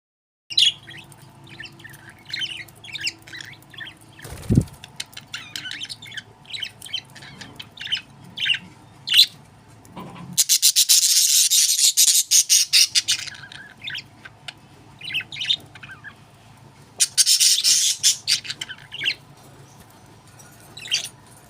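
Pet budgerigars chirping in short, sharp calls, breaking twice into loud, rapid, dense chatter lasting a couple of seconds each. A brief low thud sounds about four and a half seconds in.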